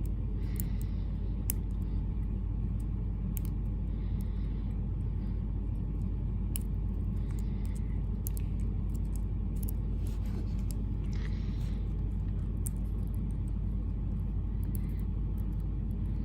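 Lock pick and tension wrench working the pins of a six-pin padlock: scattered faint ticks and brief soft scrapes as the pins are set, over a steady low rumble.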